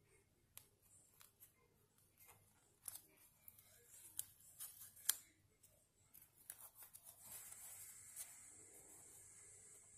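Paper and stickers being handled and pressed into a journal: small scattered clicks and crinkles, then a steady soft rubbing from about seven seconds in as a finger smooths the page.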